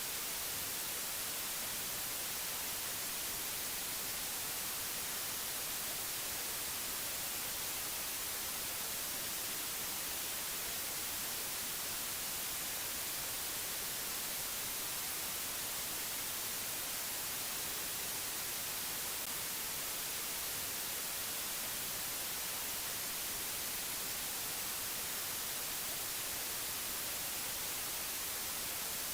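Steady hiss of white noise, strongest in the high frequencies, unchanging throughout.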